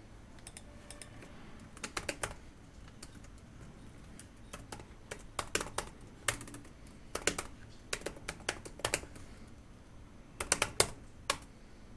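Computer keyboard being typed on, key clicks coming in short irregular bursts with pauses between them.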